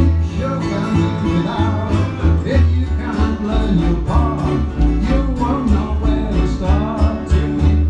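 A band playing a song live, with a steady bass line under moving melodic parts.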